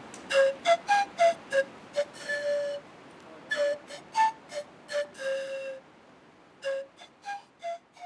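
A flute playing a simple melody of separate notes, most of them short, with two held a little longer, and a brief pause about six seconds in.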